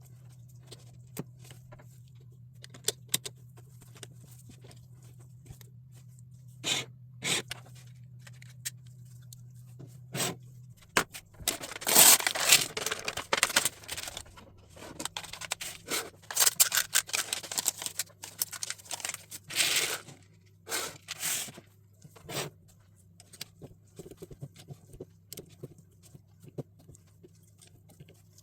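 LEGO pieces being handled and fitted together: scattered sharp clicks and small knocks, then, about eleven seconds in, two longer stretches of scraping and rustling, with a few more clicks after them.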